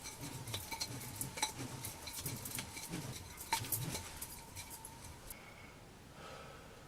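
Nunchaku being spun, with the chain links rattling and clinking in quick, irregular clicks. The clinking stops after about five seconds.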